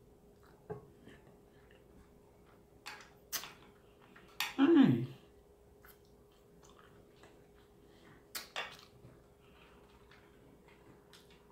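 Close-up mouth sounds of someone eating: scattered wet lip smacks and clicks as she licks her fingers, with one short vocal sound falling in pitch about halfway through.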